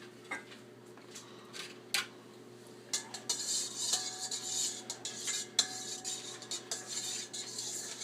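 A utensil stirring melted butter and milk together in a mixing bowl, scraping and clinking against the bowl. A few light clicks come first, and the steady stirring starts about three seconds in.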